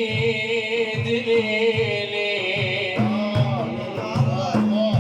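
Middle Eastern folk music: a wavering melodic instrumental line over a steady hand-drum beat of about two to three strokes a second, in a break between sung verses.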